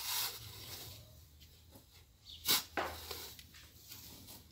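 A steel shovel scraping in loose, sandy soil while digging a planting hole, with two short, sharp sounds about two and a half seconds in.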